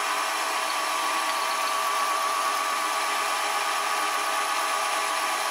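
Milling machine running a 1.5 mm end mill, cutting semicircular slots in a small brass reverser block: a steady whine over a hiss.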